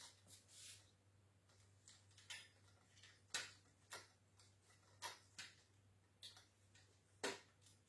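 Irregular light clicks and ticks of plastic tripod parts being twisted and screwed together by hand, the louder ones a little past three seconds in and near the end.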